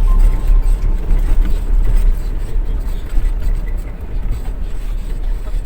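Steady low rumble of a car with its engine running.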